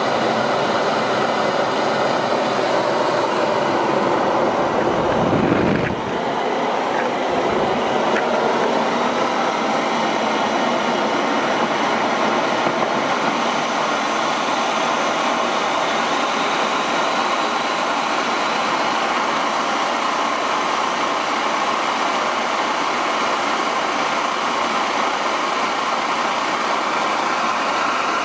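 Homemade turbocharger jet engine running, a loud steady rushing whine with many tones. About five seconds in, a low rumble swells briefly, then the level drops slightly and holds steady.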